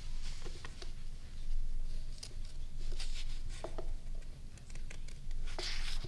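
Book pages rustling and turning, with light taps and clicks of books being handled on a wooden pulpit; a louder page rustle near the end.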